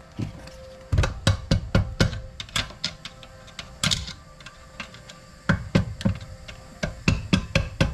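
Hammer knocking on a Honda GX200 engine part that is seized with rust after water got into the engine. About eight quick blows come first, then a pause of about two seconds, then a faster run of blows near the end.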